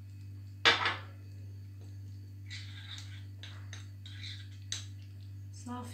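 A spoon stirring ground spices and water in a glass bowl: a sharp clink against the glass a little under a second in, then scraping and light clinks, over a steady low hum.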